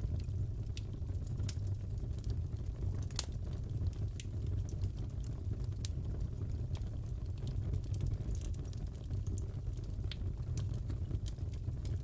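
Crackling wood fire in a fireplace: a steady low rumble with scattered sharp crackles and pops, one louder pop about three seconds in.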